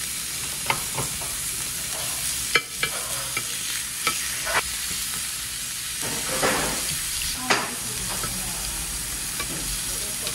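Beef slices sizzling steadily on a hot tabletop stone grill plate, with sharp clicks and a short scrape as metal tongs turn the meat against the stone.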